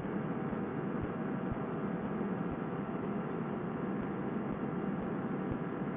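Fresh Breeze Monster single-cylinder two-stroke paramotor engine running at a steady cruise throttle, mixed with the rush of wind in flight. It comes through as a dull, even drone, cut off in the highs as by a helmet headset microphone.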